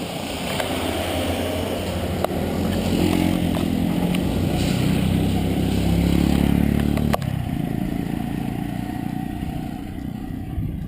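Motorcycle engine running and growing louder, dropping off abruptly about seven seconds in, with a fainter engine hum continuing after.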